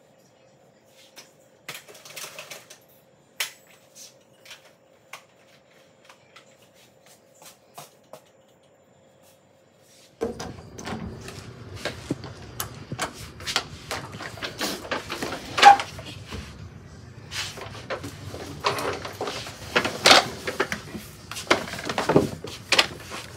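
Scattered small clicks and taps. Then, about ten seconds in, the handheld camera is picked up and carried: close rubbing and rustling, knocks and footsteps, with a closet door being handled and opened.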